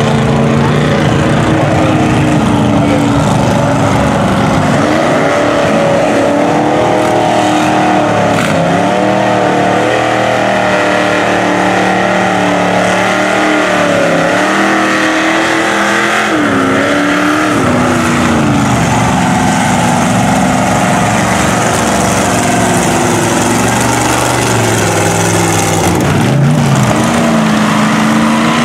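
Supercharged LQ4 6.0 L V8 of a giant custom Jeep mud truck, revving up and down as it pushes through a deep mud pit, its pitch rising and falling again and again. Near the end the revs drop sharply and climb back as the throttle is lifted and reapplied.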